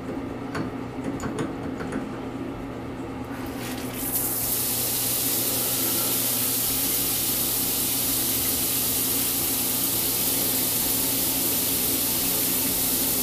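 A few light clicks as a chrome shower valve handle is worked. About four seconds in, the shower comes on with a steady hiss of spraying water in a tiled stall.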